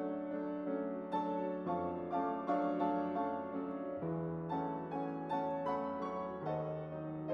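Grand piano playing a slow, gentle passage, with a new note or chord two or three times a second over sustained low bass notes.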